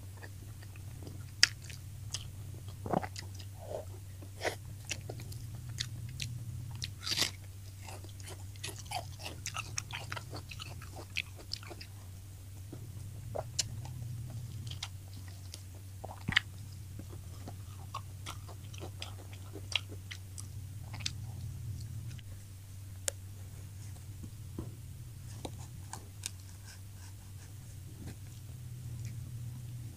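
Close-miked chewing and biting of crispy fried tilapia, with irregular sharp crunches and wet mouth clicks scattered throughout.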